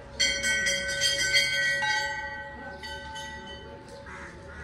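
Hindu temple bells rung by hand: a quick run of strikes in the first second and a half, then two more single strikes. Each strike rings on and fades.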